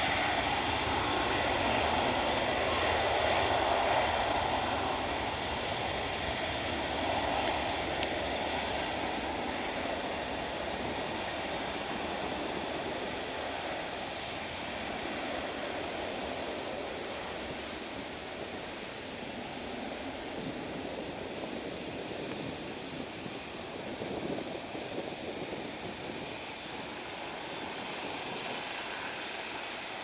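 Jet airliner engines at takeoff power, a steady rushing roar that slowly fades as the aircraft departs. A single sharp click about eight seconds in.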